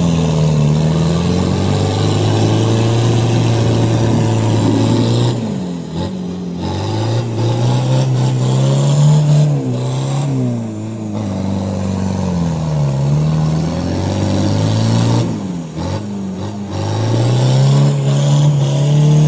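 Off-road 4x4's engine revving hard under load as the vehicle churns through deep mud, the revs rising and falling, with brief lifts off the throttle about six, ten and sixteen seconds in.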